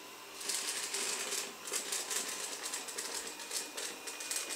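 Dreame W10 robot vacuum-mop sweeping up dry grit, a rapid irregular crackle of particles rattling into its brushes and suction over a faint steady motor whine. The crackle starts about half a second in.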